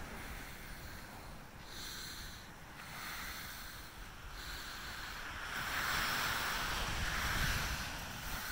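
Ocean surf washing up the beach, a wave swelling louder a little past the middle, with wind buffeting the microphone.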